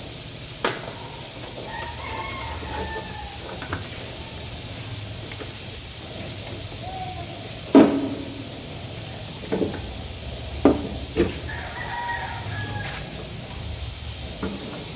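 A rooster crowing twice, about two seconds in and again about twelve seconds in. Several sharp knocks fall in between, the loudest about eight seconds in.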